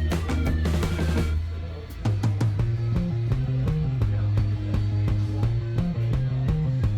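Background music: a rock track with drum kit and bass, with a brief drop about a second and a half in before the beat comes back.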